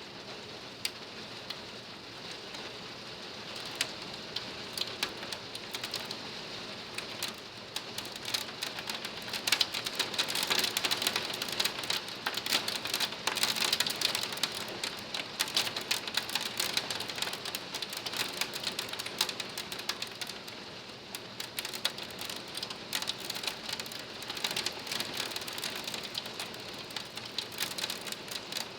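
Hail and rain beating on a pool screen enclosure: a dense patter of sharp ticks that grows heavier about ten seconds in, eases, and swells again near the end.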